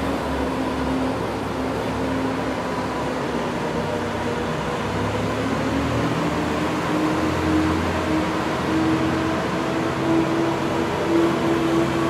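Zamboni ice resurfacer running steadily: an engine hum over a constant noisy wash, the hum rising a little in pitch over the second half.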